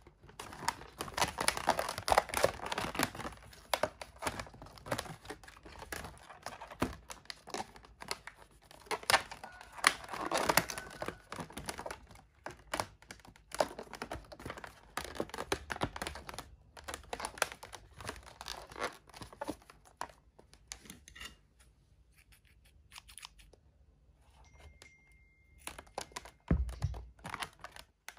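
Inflated latex modeling balloons being twisted and wrapped around each other by hand: irregular squeaky rubbing of rubber on rubber, busy at first and thinning out in the last third. A short low thump comes near the end.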